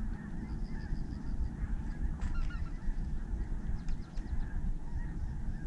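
Geese honking faintly now and then, over a steady low rumble.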